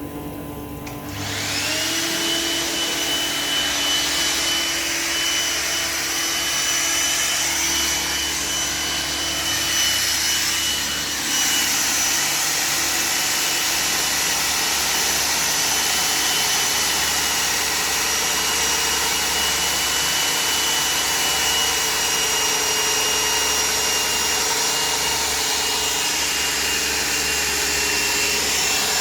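Hilti DD 160 diamond core drill motor spinning up about a second in, then running steadily with a high whine while coring concrete. The sound dips briefly about eleven seconds in.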